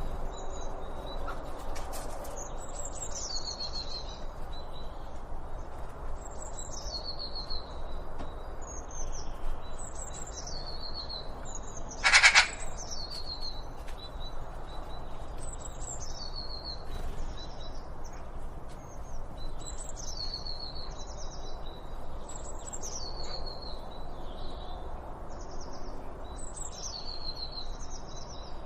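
Songbird singing a short high phrase that falls in pitch, repeated every two to three seconds, over steady outdoor background noise. About twelve seconds in, a single loud, brief, harsh bird call is the loudest sound.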